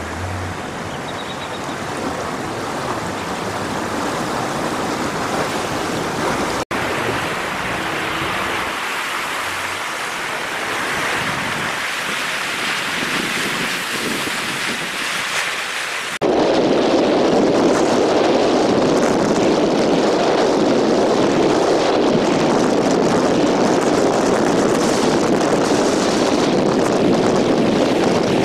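Steady rushing noise of tyres hissing through standing floodwater, heard from inside a moving vehicle. About halfway through the sound cuts to a louder, lower, steady rush of wind on the microphone.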